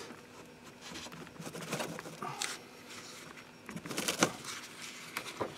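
Gloved hands straining a wrench on a stubborn brake caliper carrier bolt: faint rustling with scattered small metallic clicks and knocks, busiest about four seconds in.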